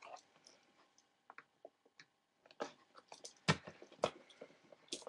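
Faint, scattered clicks and light scrapes of a cardboard box and its packaging being handled and opened, with a few sharper clicks in the second half.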